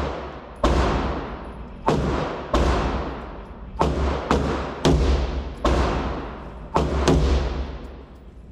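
AR-15 rifle firing .223 rounds semi-automatically on an indoor range: about ten shots at an uneven pace of roughly one a second. Each shot is a sharp crack followed by a long echo off the range walls.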